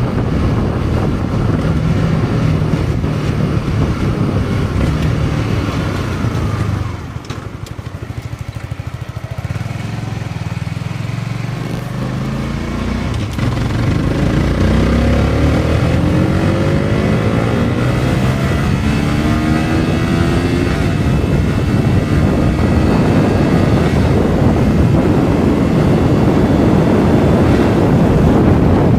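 Wind rushing over the microphone on a moving motorcycle, with the stock engine's note underneath. About seven seconds in it drops quieter as the bike slows, then the engine pitch climbs again in several steps as it speeds back up.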